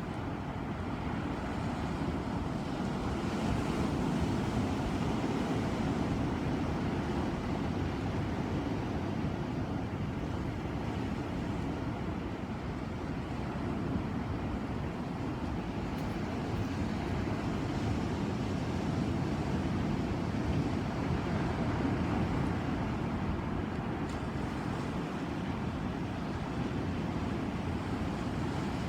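Ocean waves breaking and washing in, a steady low wash that swells and eases gently.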